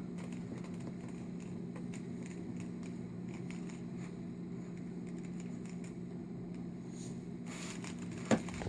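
Plastic Rubik's Cube being twisted by hand: faint, irregular clicks of its layers turning, with one sharper click near the end, over a steady low hum.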